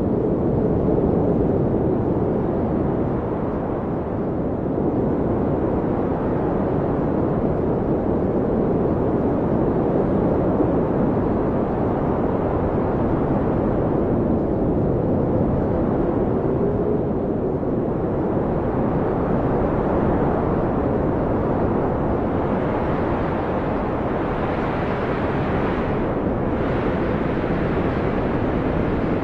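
Blizzard wind blowing steadily with a deep rumble and a faint, wavering howl; a stronger, hissier gust builds late on.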